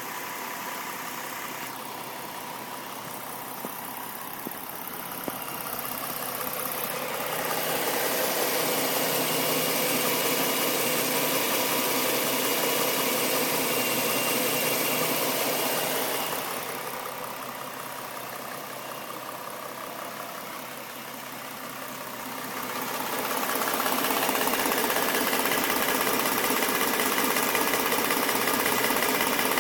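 A 2011 Mustang's 3.7-litre V6 idling steadily, with a ticking that the owner suspects is a knock from the passenger-side cylinder head, plus injector ticking. It grows louder for two long stretches.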